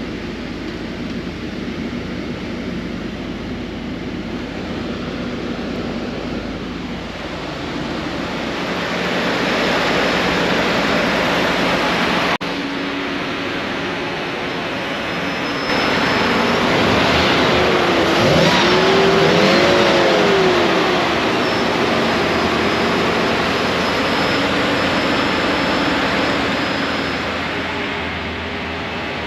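A 2025 Blue Bird Vision school bus engine running as the bus moves. It gets louder about halfway through, with the engine note rising and falling.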